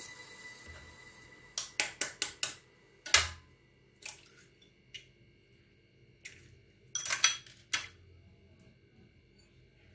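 Eggs tapped against the rim of a glass bowl and cracked open, with light clinks of shell on glass. There is a quick run of taps a couple of seconds in, a single louder knock about three seconds in, and another run of taps about seven seconds in.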